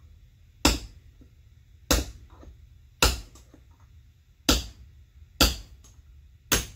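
Hammer striking a steel punch six times, sharp metallic blows roughly a second apart, driving an old wheel bearing out of a two-piece aluminum go-kart wheel.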